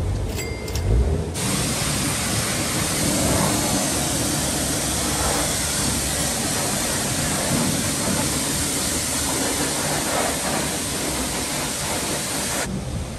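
Self-service car wash high-pressure lance spraying water onto a motocross bike: a loud, steady hiss of the jet that starts abruptly about a second in and cuts off near the end.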